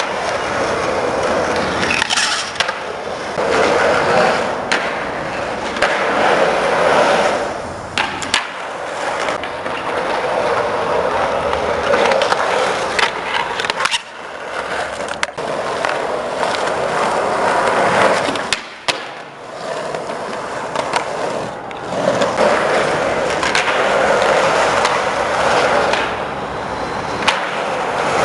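Skateboard wheels rolling on concrete, the noise swelling and fading every few seconds as the board passes, with sharp clacks of the board and trucks hitting the ground scattered through.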